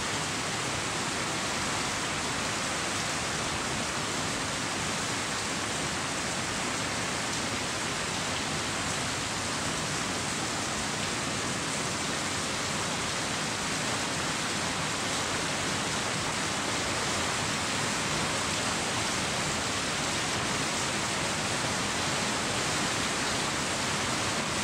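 Steady, even rushing noise of falling water, like heavy rain or a waterfall, unchanging throughout.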